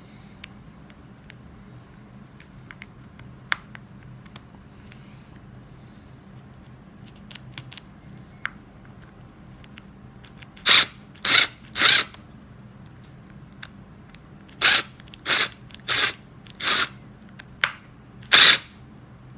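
Milwaukee Fuel brushless impact driver, partly disassembled, run in about eight short trigger bursts during the second half, each a brief whir that starts and stops; light clicks of the tool being handled come before them.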